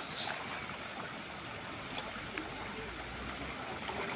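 Steady outdoor background noise, with scattered faint clicks and faint distant voices.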